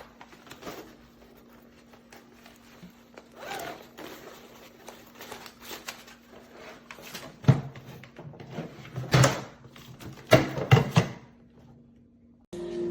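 A hardside ABS suitcase being handled: scattered clicks and rustling, with several sharp knocks in the second half.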